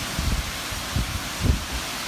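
Summer thunderstorm: a steady hiss of wind and rain, with gusts buffeting the microphone twice, near the start and about midway.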